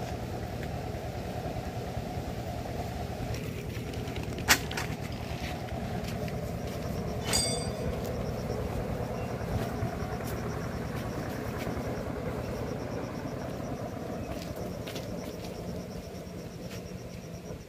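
8 hp single-cylinder diesel pumping set engine running steadily, getting quieter near the end. A sharp click about four and a half seconds in.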